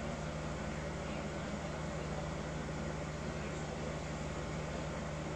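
A steady low hum with an even hiss over it, unchanging throughout, like a running fan or household appliance.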